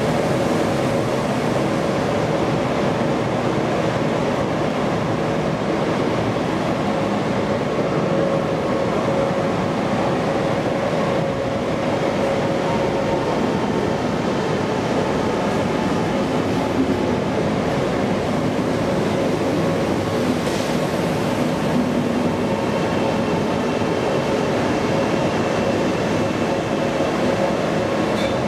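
Arlanda Express X3 electric train running slowly into a platform and past close by: a steady rumble of wheels and running gear with a held whine that fades out about halfway through.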